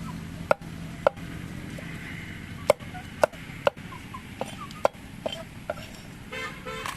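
Chopping with a blade, about nine sharp, irregularly spaced strokes. Near the end there is a brief rapid rattle.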